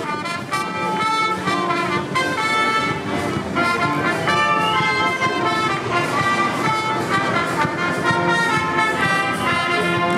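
Brass music, with trumpets among the instruments, playing a melody of held notes.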